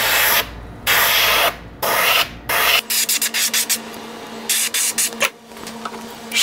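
Airbrush hissing in bursts as the trigger is pulled and released, spraying paint onto a wooden lure: four half-second bursts, then from about three seconds in many shorter, quicker ones over a faint steady low hum.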